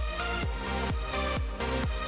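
Background electronic dance music with a steady kick drum, about two beats a second.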